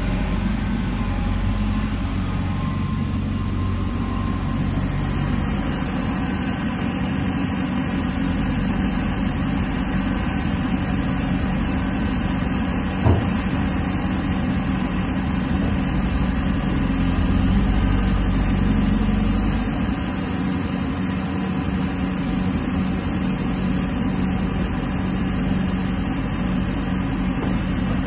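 JCB JS160LC tracked excavator's diesel engine running steadily while the upper body slews round and the boom and bucket are moved, with a single short knock about halfway through.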